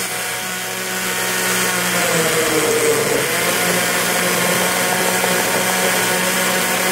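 Countertop blender running, pureeing chunks of watermelon into juice, with its motor note wavering briefly about two to three seconds in.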